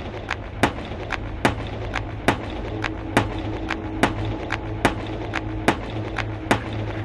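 Title-card sound effects: a sharp hit as each letter stamps onto the screen, a loud one a little under every second with smaller clicks between, over a steady low hum.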